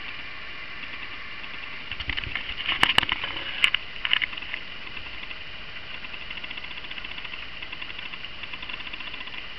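Steady high-pitched electrical whine made of several faint tones, with a cluster of clicks and rustling from about two to four and a half seconds in as the camera is handled and moved closer.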